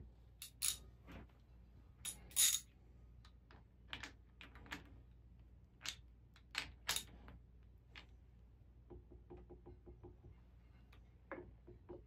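Steel hand tools clinking on the cam retainer plate bolts of a Triumph Spitfire engine: scattered sharp metal clinks as a socket and extension are handled and fitted, then a run of quick ratchet clicks in the last few seconds as a bolt is turned. The plate is being tightened down to check the camshaft's end float.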